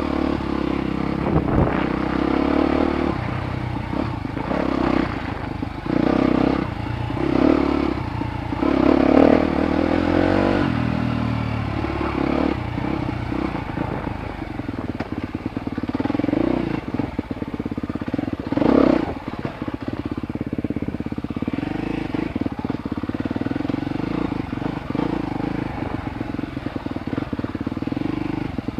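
A 250 cc single-cylinder dirt bike engine under way on a rough forest trail, its pitch rising and falling as the throttle is opened and closed in quick surges, then running more evenly, with the bike's frame and parts rattling over bumps.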